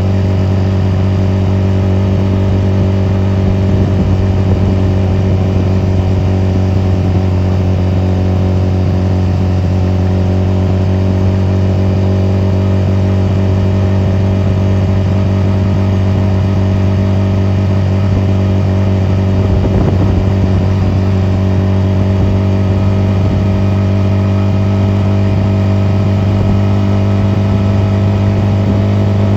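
Honda 250cc motorcycle engine running at a steady engine speed, its pitch holding nearly constant throughout.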